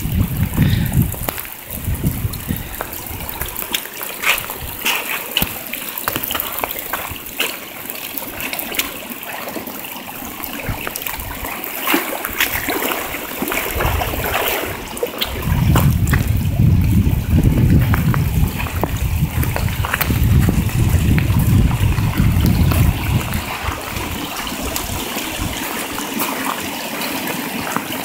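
Muddy stormwater rushing and splashing in a channel it is cutting through a gravel driveway. A heavier low rumble comes in for several seconds past the middle.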